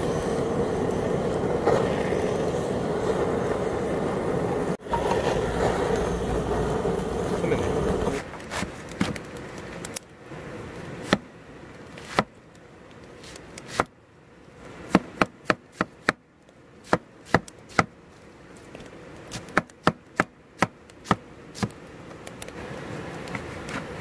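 Handheld butane torch flame running steadily as it lights charcoal for about eight seconds. Then a kitchen knife chopping cabbage on a plastic cutting board: sharp, irregular knocks in quick runs.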